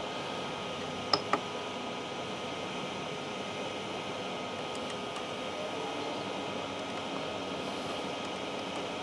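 Steady whir of a powered-on Sovol SV01 3D printer's cooling fans, with two short clicks from its LCD control knob about a second in.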